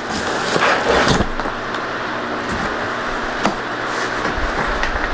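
Cardboard diamond-painting kit boxes being handled and set down on a bed, with a cluster of knocks and rustles about a second in, then softer shuffling and a few scattered taps.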